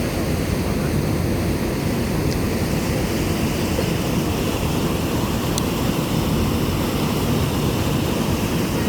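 Steady low rumble and rushing noise on board a lake cruise ship under way: engine drone mixed with wind and water.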